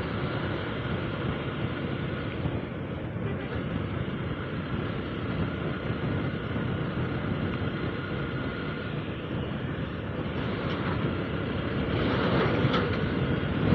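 Motorcycle riding along a paved road at a steady speed: engine running with wind rushing over the microphone and tyre noise. It grows a little louder near the end as the bike passes a large truck.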